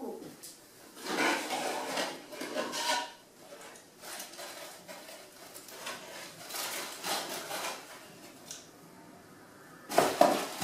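Rustling and knocking as a boxed chocolate Easter egg's cardboard packaging is taken from a kitchen cupboard and opened, with a louder knock near the end.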